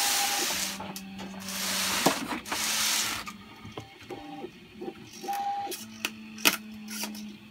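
Small hobby servo whirring in short runs as it drives a 3D-printed R2-D2 body door, with a few sharp clicks. The servo mechanism is still being adjusted and does not move the door properly yet. Loud bursts of rubbing noise fill the first three seconds.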